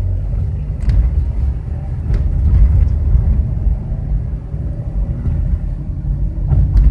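Steady low droning hum with road rumble inside the cabin of a moving 2013 Chevrolet Impala. It is a hum from the front that goes with the wheel, which the owner takes for a bad wheel bearing, likely on the driver's side.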